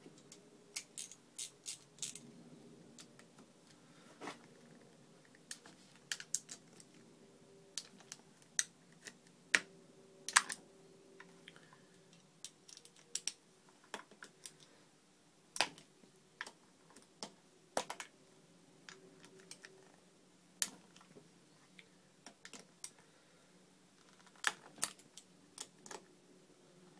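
Irregular sharp metallic clicks and taps of a hand socket driver working the 8mm casing screws on a Honda C90 engine's clutch cover, cracking them loose one by one; the clicks come singly or in quick little runs with pauses between.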